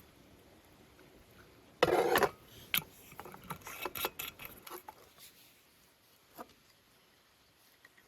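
A drink being poured into a cup of ice, heard as a short loud rush about two seconds in, followed by a few seconds of light clinks and rattles of ice in the cup.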